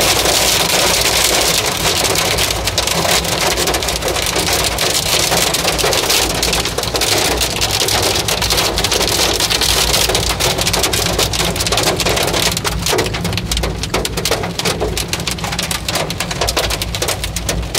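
Rain beating on a car's windshield and roof, heard from inside the cabin while driving. In the last few seconds the steady hiss thins and separate drop hits stand out.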